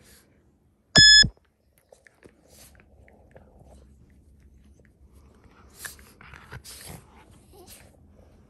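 Two small dogs play-fighting: one short, loud, high-pitched bark about a second in, then quiet scuffling, mouthing and rustling of fur against a plush dog bed.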